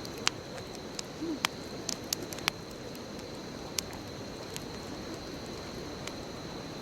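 Bonfire crackling: burning wood gives sharp pops and snaps, several in quick succession in the first couple of seconds and then only a few, over a steady hiss.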